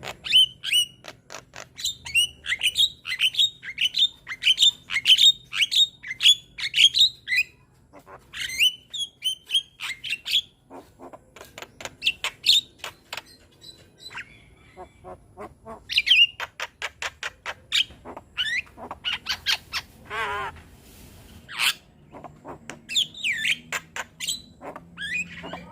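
Young Javan myna (jalak kebo) singing: fast runs of sharp clicks and squeaky, downward-sliding whistled notes, broken by short pauses, with a brief warbling trill about twenty seconds in.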